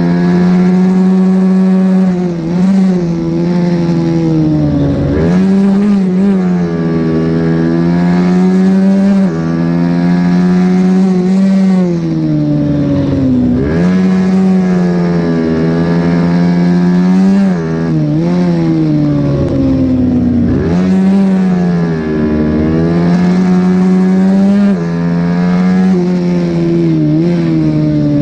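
Racing minibike engine heard from onboard, running hard at about 8,000 to 11,000 rpm. Its pitch holds high on the straights, drops each time the bike slows for a corner, and climbs again as it accelerates out, several times over.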